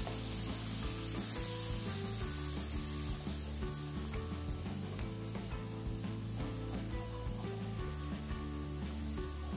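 Diced onion and garlic sizzling steadily in butter and olive oil in a frying pan, stirred with a silicone spatula, as they soften in a light sauté.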